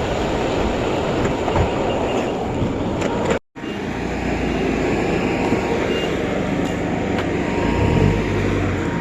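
A vehicle driving, heard as a steady low rumble of road and engine noise with rattling. It breaks off completely for a moment about three and a half seconds in.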